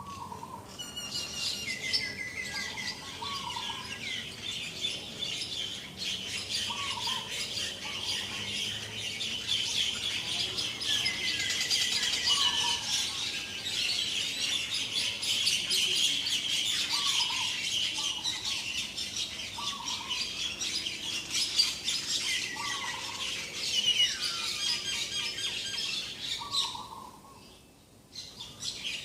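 Morning chorus of many birds chirping and twittering densely, with a lower short call repeated every second or two. It drops away briefly near the end.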